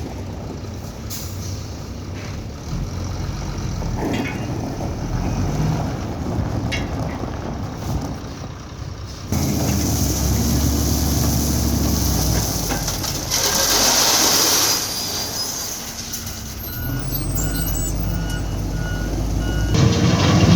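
Diesel engines of a wheel loader and dump trucks running under work. Partway through, air brakes let out a loud hiss for a second or two, and near the end a reversing alarm beeps about two to three times a second.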